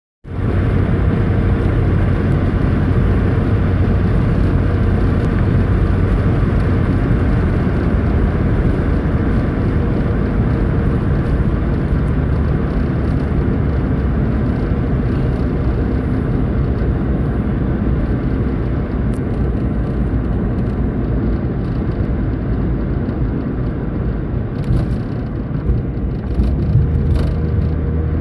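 Steady engine hum and road rumble of a moving car, unbroken throughout.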